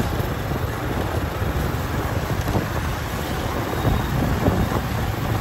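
Steady street traffic noise with a low, unsteady rumble of wind on the microphone.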